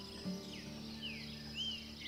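Soft background music with held low notes changing every half second or so, over several short high bird chirps and a steady high insect buzz.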